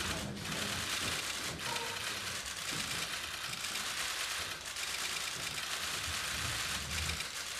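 Many camera shutters clicking rapidly and overlapping, a continuous stream of clicks from a crowd of still cameras.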